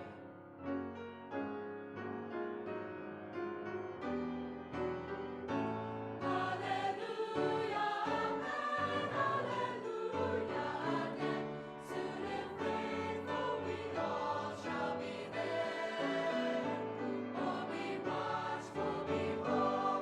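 Choral music: a choir singing with accompaniment, growing fuller and louder about six seconds in.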